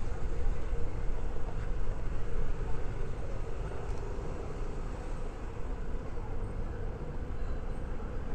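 Suzuki Every Wagon (DA64W) kei van driving slowly: a steady low rumble of engine and tyre noise.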